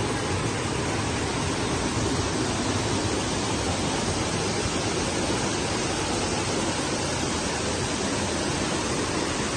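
Water pouring over a small weir and a rocky cascade into a shallow pool, a steady, unbroken rush.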